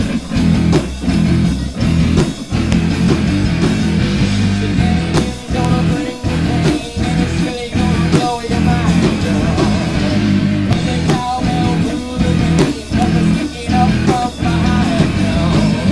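A rock band playing live and loud: electric guitar, bass and drums.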